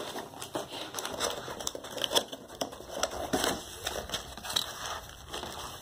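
Cardboard box being opened by hand: flaps bending and rubbing, with irregular crinkling, scraping and light taps.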